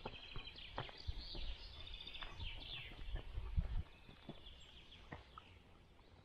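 Small birds singing, rapid chirps and trills for the first three seconds or so, then fainter. Under them, scattered clicks and steps of a walking dog, with low rumbling thumps about three to four seconds in.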